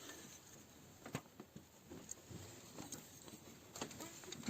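Faint scattered clicks and light metal scrapes of a wrench on the pump pulley as the Ford Escort 1.8 diesel engine is turned over by hand to check the newly fitted timing belt, with one sharper click about a second in.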